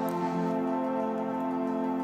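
Background music of long, held chords that stay steady throughout.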